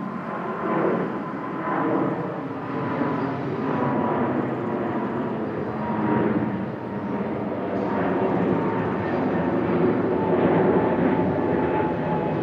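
Boeing 777-200's twin turbofan engines at climb power after takeoff: a steady jet noise with a faint whine that slowly drops in pitch, growing a little louder toward the end.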